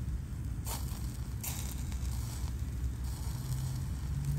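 Wood fire burning in a small gasifier camp stove under a grilling burger patty: a few sharp crackles, about a second apart, over a steady low rumble.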